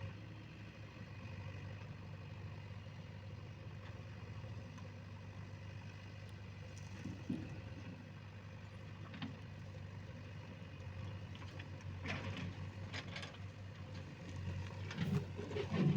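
Diesel engine of a JCB 3DX backhoe loader running steadily, with a few short knocks in the second half, the loudest near the end.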